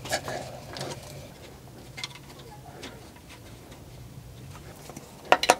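A spanner working on the metal fuel-line union nuts of a Bosch K-Jetronic fuel distributor: a few faint metallic clinks, then a quick run of sharp clicks near the end, over a low steady hum.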